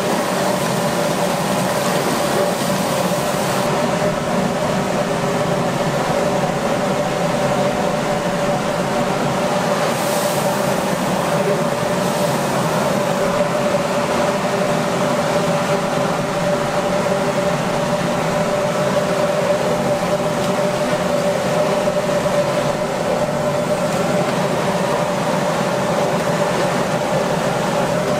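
Machinery running steadily with a constant hum, a single held tone over an even noise that does not change.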